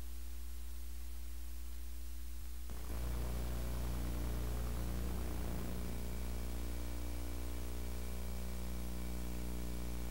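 Steady electrical hum with hiss from a VHS tape's blank lead-in during playback. About three seconds in, the hiss grows a little louder and rougher as the tape noise begins.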